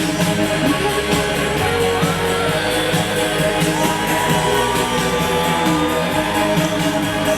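Music with guitar over a steady beat, with held and sliding notes.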